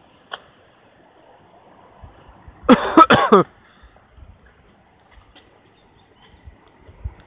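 A person coughing twice, close and loud, about three seconds in, over the faint steady rush of the mountain river below.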